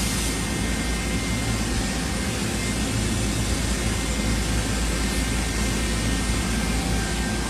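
Steady machine-shop hum and hiss, with a constant low drone and a faint high whine; no sudden sounds.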